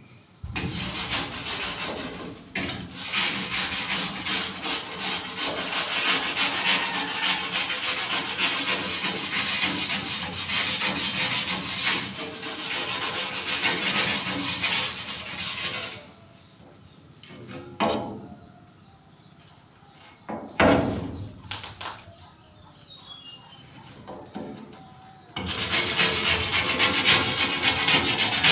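Hand scrubbing and scraping on a rusty steel roof truss, a steady rasping rub that runs for about sixteen seconds. It then stops, a few knocks follow, and the scrubbing starts again near the end.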